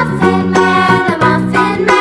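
Upbeat dance music with a steady beat and a bright melody.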